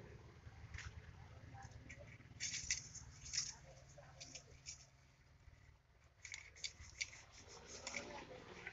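Faint, scattered small clicks and rustles in irregular clusters over a low hum.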